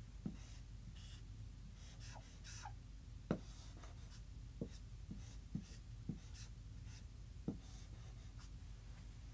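Marker writing on a whiteboard: faint scratchy strokes, with a handful of short sharp ticks as the tip meets the board.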